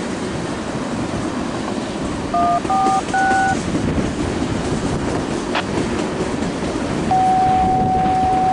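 Empty railroad tank cars of an oil train rolling steadily past on the rails. About two seconds in there is a quick run of paired beeps like touch-tone dialing from a radio, and near the end a single steady beep tone starts and holds.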